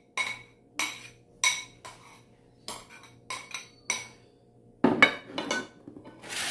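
A spoon clinking against a bowl as sauce is knocked off it: a series of sharp, ringing clinks, about two a second, then a louder clatter of scraping and knocks about five seconds in.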